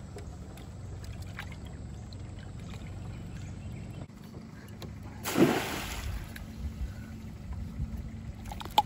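A crab trap splashing into the river once, about five seconds in, over a steady low rumble.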